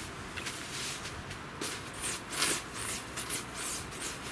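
Synthetic tent floor sheet rustling and swishing under stockinged feet as it is walked on and smoothed out, in irregular bursts several times a second.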